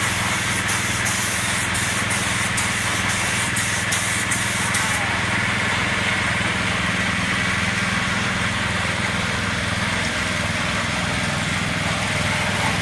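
Paint spray gun hissing steadily over a steady low motor hum, with a run of faint high clicks that stops about five seconds in.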